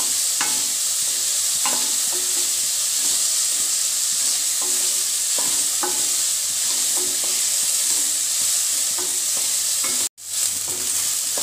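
Chopped onion and tomato sizzling in hot oil in a kadhai, stirred with a wooden spatula that clicks and scrapes against the pan now and then. The sound drops out for a split second about ten seconds in.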